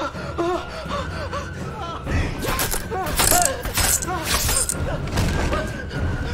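Nail gun firing a rapid series of about six or seven sharp shots from about two seconds in, driving nails into flesh and wood, while a man cries out and gasps in pain.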